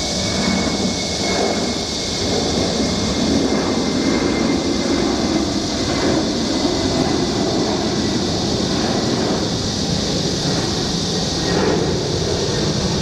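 Jet airliner engines running, a loud, steady rush of noise with a faint high whine that fades away over the first several seconds.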